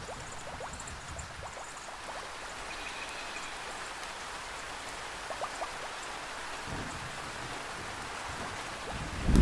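Steady rainfall in a rainforest, with scattered close drops ticking on leaves or surfaces. A low rumble rises briefly about two-thirds of the way through and swells again at the very end.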